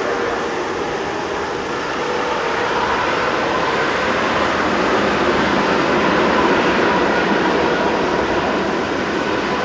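Jet engine roar of a Thai Airways Airbus A380, with four Rolls-Royce Trent 900 engines, during its landing rollout. The steady roar swells about two seconds in and stays loud, with a faint whine running through it.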